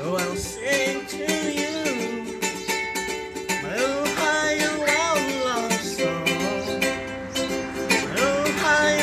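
Ukulele strummed in quick, steady chords, with a voice singing a gliding melody along with it.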